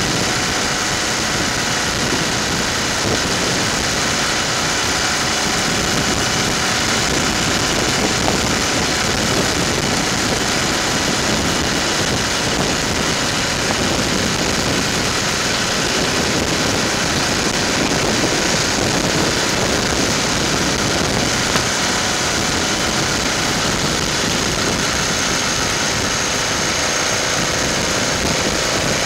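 Motorcycle cruising at a steady speed: the engine runs evenly under a constant rush of wind noise on the bike-mounted microphone.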